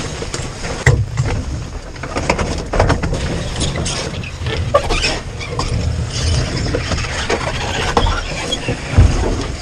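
Canoe carried overturned on the shoulders along a portage trail, jostling as it goes: a steady low rumble of movement with irregular knocks and rattles from the hull. The sharpest thumps come about a second in and near the end.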